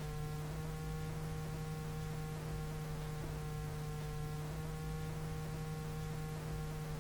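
A steady low electrical hum with a few fainter steady higher tones above it and faint soft ticks recurring about once a second.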